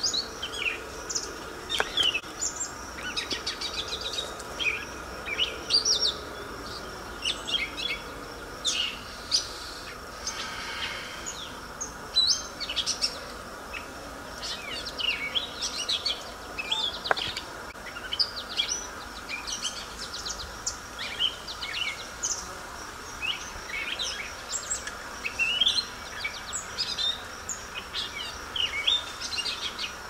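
Chorus of songbirds singing, with many overlapping short chirps, trills and whistled phrases.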